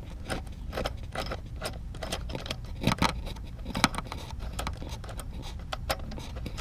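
Small hand tool working a bolt on a GY6 scooter's plastic shroud: irregular light metallic clicks and clinks as the bolt is turned out, with a few louder knocks around the middle.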